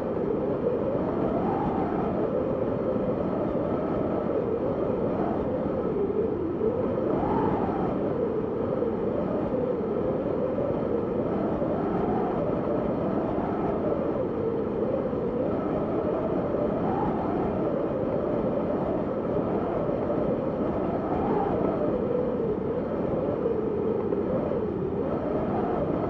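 Wind blowing: a steady rushing noise with a hollow, whistling tone that rises and falls every second or two as it gusts.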